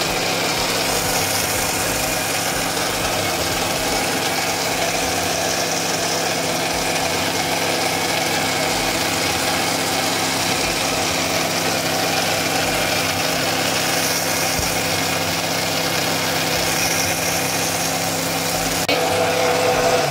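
Electric mixer grinder running steadily at full speed, its motor blending a wet green chutney of coriander and green chilli in a steel jar, then switched off right at the end.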